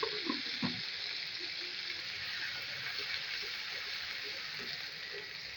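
Onion frying in hot oil in a kadhai, a steady sizzle, with a few short scrapes of the stirring spoon in the first second.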